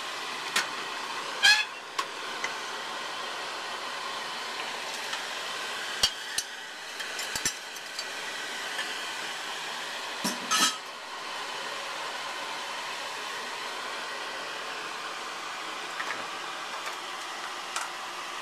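Wooden spoon and metal spatula knocking and scraping against a stainless steel pot as seared lamb chunks go into tomato sauce. The sharp clatters are spread out, the loudest about a second and a half in and again about ten seconds in. A steady whirring hiss runs underneath.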